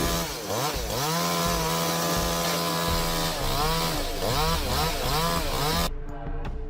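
A petrol chainsaw running at high revs, its pitch dipping and climbing back several times as the engine loads and recovers in the cut.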